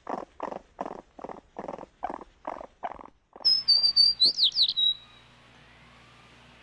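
An animal's rapid, evenly repeated calls, about two and a half a second, stop after about three seconds. Then a bird gives a burst of high chirps and whistles lasting about a second and a half.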